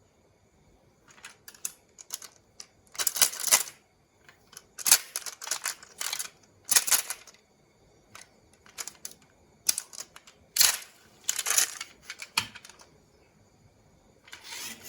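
Marbles clicking and rattling down a wooden marble-run track: irregular bursts of sharp clacks and short rattles, separated by brief pauses.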